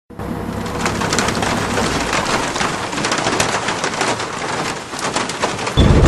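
Rain-like patter: a dense hiss full of small crackles. A heavy low rumble comes in abruptly near the end.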